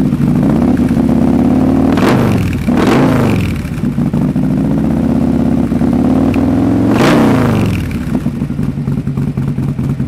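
Harley-Davidson 128 cubic inch Milwaukee-Eight V-twin running through a 2-into-1 Pro Mod exhaust with Feuling anti-reversion chambers. It idles, the throttle is blipped twice in quick succession about two seconds in and once more about seven seconds in, and each rev falls back to idle.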